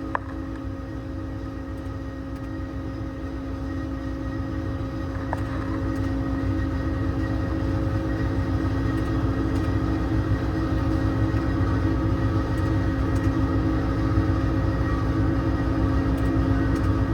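IMT hydraulic air compressor on a Ford F-550 service body running, with the 6.7 L Power Stroke diesel idling to drive it. It makes a steady hum that grows louder over the first several seconds and then holds level.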